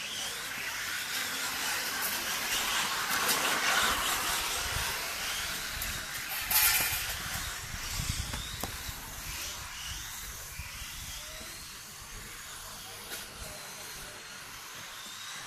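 1:10 scale electric RC rally cars running past, their electric motors whining up and down in pitch over tyre hiss on the court surface, loudest about four seconds in. A sharp knock comes near the middle, and the cars then fade away.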